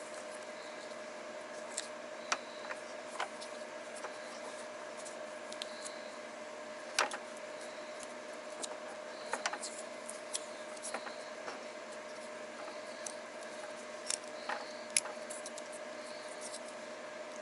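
Scattered small clicks and taps of wire, tape and hand tools being handled during cord repair work. They sound over a steady faint hum.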